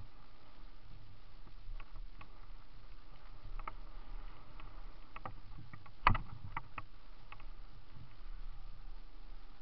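Mountain bike rolling fast down a leaf-covered dirt trail: a steady rumble of tyres and wind, with scattered rattling clicks from the bike and one sharp knock about six seconds in.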